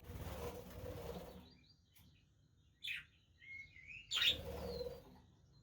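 Budgerigars fluttering their wings, with a short chirp and a brief wavering warble between two bursts of flapping; the second flutter comes about four seconds in.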